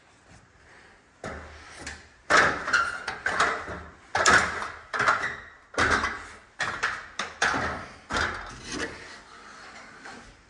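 Boots climbing a ladder: a series of knocks and clunks on the rungs, roughly one a second, starting about a second in.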